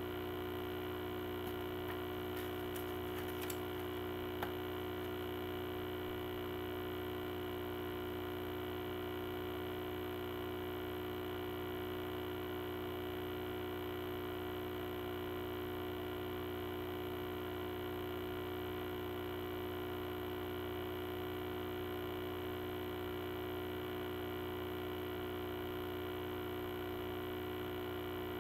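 Steady electrical mains hum with a stack of fixed buzzing tones, picked up in the recording. A few faint light clicks come in the first few seconds.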